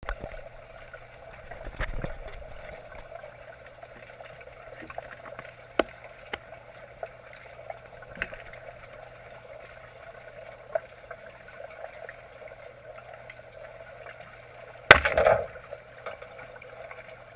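Omer Cayman 2000 speargun fired underwater: about fifteen seconds in, a sudden sharp crack that rings and rattles on for about half a second. Before it, a steady underwater hum with a few scattered small clicks.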